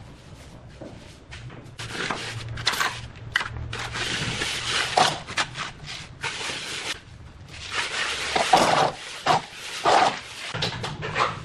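Steel hand trowel scraping across wet cement mortar as a floor screed is spread and smoothed, rasping in two long stretches of strokes with a pause between them.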